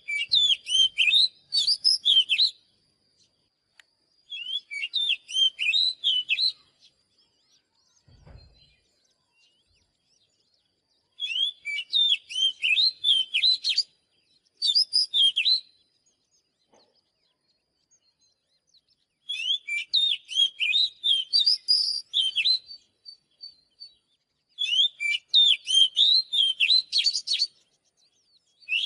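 Oriental magpie-robin singing in about six bouts of rapid, varied whistled notes, each a couple of seconds long, with pauses between them.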